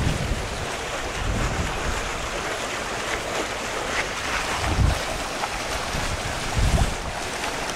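Wind buffeting the camera microphone: a steady hiss with low rumbling gusts near the start, about five seconds in and again near seven seconds.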